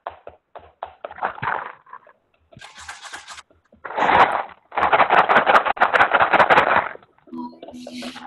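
Homemade paper plate ocean drum tilted and shaken, its loose filling rattling and rushing across the plates: a short spell about four seconds in, then a longer one of about two seconds. Light taps and clicks come before it.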